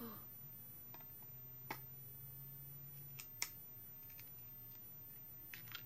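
A few short, sharp clicks from a clear plastic clamshell package being handled, the loudest about three and a half seconds in, over a faint low hum.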